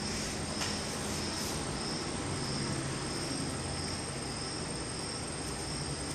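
Crickets chirping in a steady pulse about twice a second over a constant low hum.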